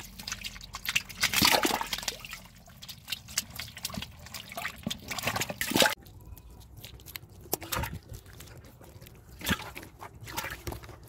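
Catfish thrashing in shallow muddy water: a rapid run of wet splashes and slaps in the first half, then a few separate splashes.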